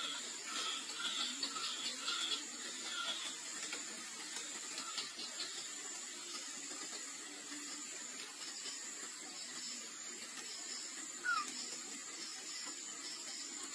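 Faint outdoor ambience with a steady high-pitched insect drone and hiss. A run of quick, evenly spaced chirps comes in the first few seconds, and one short chirp comes near the end.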